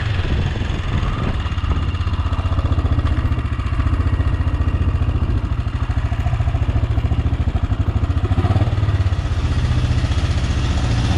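AJP PR7's single-cylinder engine running steadily at low revs, with an even rapid beat, as the motorcycle rolls slowly.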